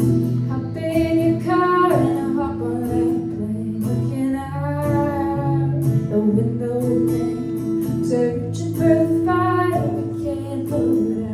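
A woman singing with strummed acoustic guitar accompaniment, drawn-out sung phrases over steady chords.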